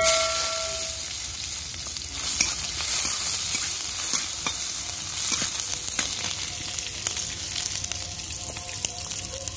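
Sliced onions sizzling in hot oil in a steel kadai, stirred with a long metal spatula that scrapes and taps against the pan. A metal ring from the pan dies away in the first second.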